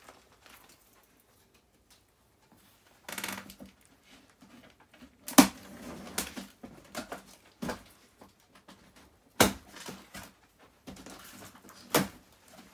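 Cardboard delivery box being handled and opened: rustling and scraping of cardboard, with three sharp knocks, the loudest about five seconds in.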